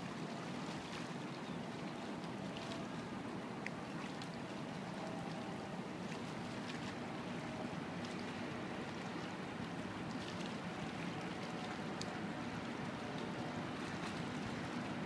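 Tugboat's diesel engine running steadily as it moves a large bridge pontoon, heard as a continuous low hum under a steady wash of noise, with a few faint ticks.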